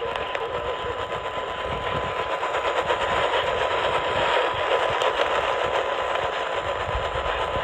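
Radio static from a weak, noisy signal: a dense hiss with fast crackling and a faint steady whistle running through it.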